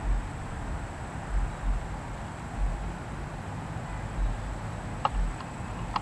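Outdoor background ambience with no siren sounding. Irregular low rumbles, like gusts on the microphone, sit over a steady hiss, with a faint steady high whine and a couple of faint clicks about five seconds in.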